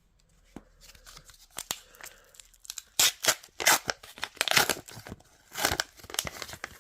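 A trading card pack's wrapper being torn open and crinkled by hand: a run of sharp rips and crackles, loudest about halfway through and again near the end.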